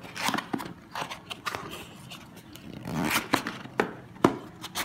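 Hands handling a white cardboard packaging box: a string of short scrapes, rubs and light knocks as the box is moved about and its contents handled.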